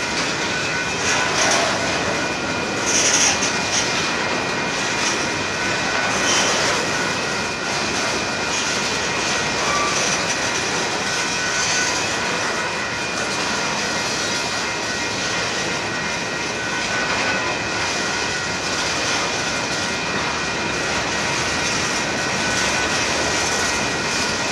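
Covered hopper cars of a Union Pacific freight train rolling past close by: a steady rumble and rush of steel wheels on rail.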